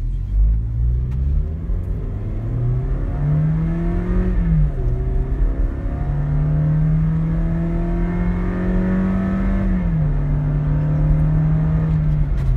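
Toyota Innova's engine, heard inside the cabin, accelerating hard. Its note climbs, drops as the automatic gearbox shifts up about four and a half seconds in, climbs slowly again, and drops at a second upshift about ten seconds in.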